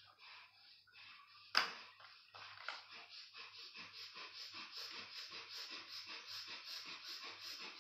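Bhastrika pranayama (bellows breath): forceful rhythmic breathing in and out, settling into a fast, even pace of two to three breaths a second. A single sharp click sounds about a second and a half in.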